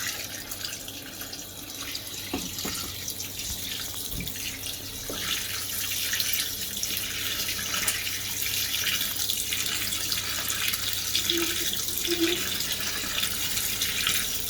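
Fisher & Paykel MW511 washing machine filling with water: a steady hiss of running water.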